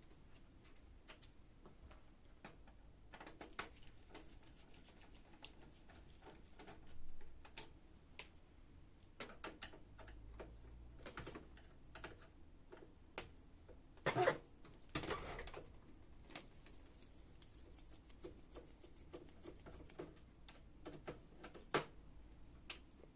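A screwdriver backing out screws from a laser printer's frame: scattered light clicks and ticks with a few louder knocks, the loudest a little past the middle.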